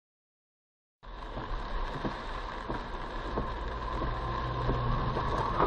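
Car driving: steady road and engine rumble that starts abruptly about a second in and slowly grows louder.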